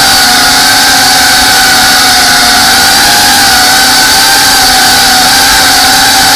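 FPV quadcopter's brushless motors and propellers whining steadily, heard from the drone's own on-board camera; the pitch wavers slightly with throttle.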